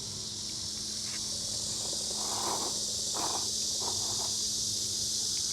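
Insects chirring steadily in a continuous high-pitched drone, with a few faint short sounds in the middle.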